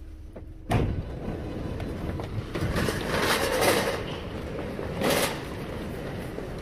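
A train's running noise: a steady rush and rumble that starts suddenly about a second in and swells twice.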